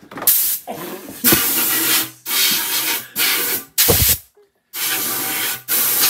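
Compressed-air blow gun fired in about seven short hissing blasts into an acoustic guitar's body, clearing wood chips left from drilling the bridge-plate holes.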